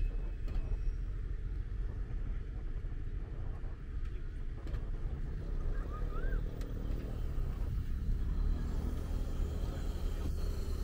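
City street ambience of traffic: a steady low rumble, with a brighter hiss building from about eight seconds in as a vehicle passes close.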